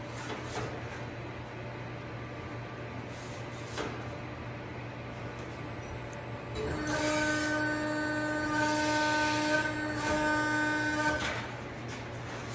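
An 8 ft, 145-ton CNC servo press brake's drive whining at one steady pitch for about four and a half seconds, starting about halfway through and cutting off near the end, as the ram makes a bend. Beneath it runs a low steady hum.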